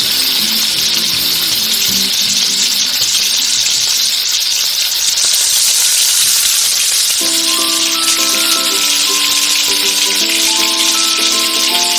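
Chicken pieces frying in butter and oil in a pan, a steady loud sizzle, with background music for the first couple of seconds and again from about seven seconds in.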